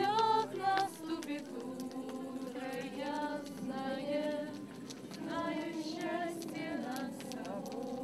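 A woman singing to an acoustic guitar. After about a second it turns quieter, with several voices singing along.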